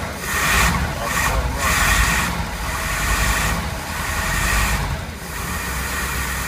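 Chris-Craft boat's inboard engine running just after being cranked back to life after sitting two years, heard close up in the open engine bay. It runs loud and uneven, surging up and down every second or so as it is given a little gas, and eases off a little near the end.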